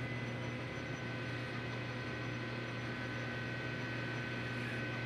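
Metal lathe running, switched on just before: a steady hum from the motor and spindle with a thin high whine on top, while it turns a cut on the workpiece's diameter.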